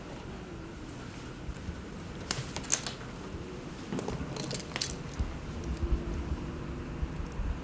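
Light metallic clicks and clinks of small hand tools and wire being handled during repair work, a few sharp ticks about two seconds in and another cluster around four and a half seconds.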